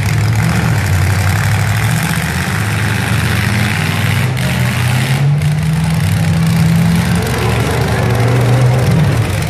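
Several demolition-derby pickup trucks' engines idling and revving over a steady wash of engine noise. One engine's pitch climbs slowly a few seconds in, drops back about seven seconds in, then rises again near the end.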